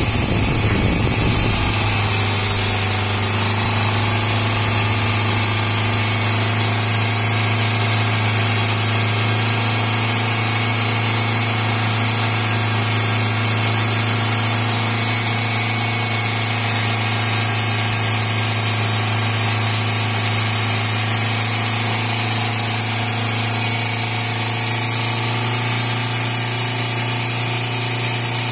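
Chevrolet Spark's petrol engine idling steadily, its revs dropping back in the first second or two and then holding even. It is being kept running with the upper radiator hose off so that it warms up and the thermostat opens, flushing rusty coolant out of the cooling system.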